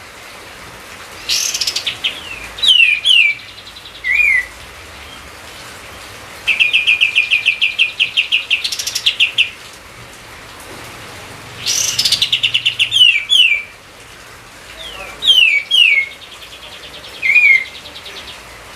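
A songbird singing loud phrases every few seconds: fast trills of evenly repeated notes, one running about three seconds in the middle, mixed with short, sharp down-slurred whistles.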